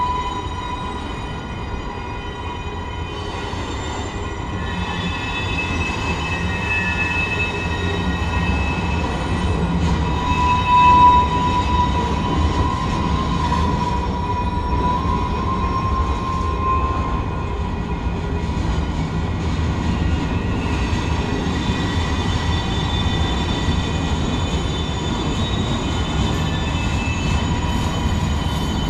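Freight train of loaded flatcars rolling past, a steady low rumble of wheels on rail with a continuous high squeal from the wheels that swells loudest around the middle.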